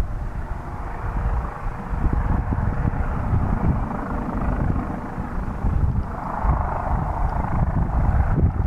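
Rescue helicopter running, a steady rotor and engine noise with a heavy low rumble and a faint steady whine; the higher rushing part swells from about six seconds in.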